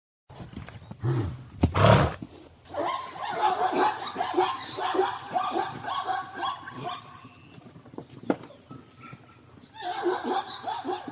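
Zebra calling: a run of short, repeated yelping barks that pauses after about seven seconds and starts again near the end. A loud burst of noise comes just before the calls, about two seconds in.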